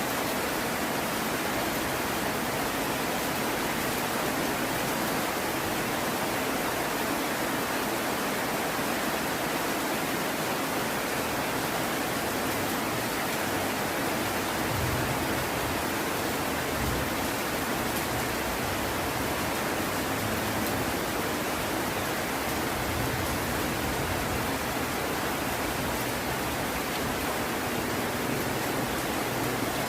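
Heavy rain falling, a steady, even hiss with no let-up, and two faint low rumbles about halfway through.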